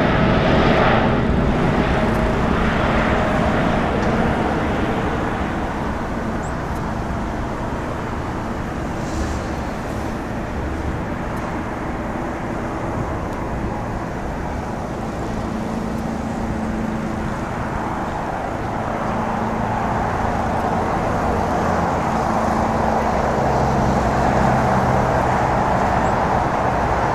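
Boeing 747-8F's four GEnx turbofans at takeoff thrust, a steady jet roar through the takeoff roll and climb-out. The roar eases a little in the middle and swells again near the end.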